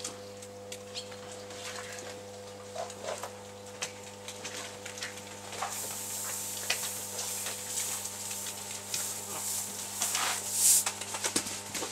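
Feed granules for calves pouring from a bucket onto hay in a feed trough: a rustling hiss that starts about halfway and is loudest near the end. Scattered clicks and knocks and a steady mechanical hum run underneath.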